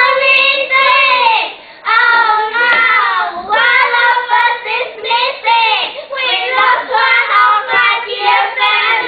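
A group of children singing together in loud, sustained phrases.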